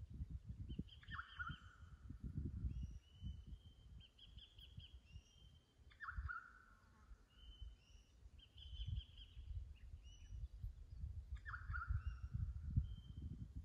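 Wild birds calling: one repeats a short falling call about every five seconds, among shorter, higher chirps. Under them runs a low, gusty rumble of wind on the microphone.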